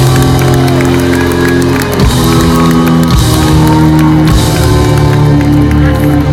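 Loud live pop-rock band music, held chords changing every second or so, with a crowd cheering and whooping under it.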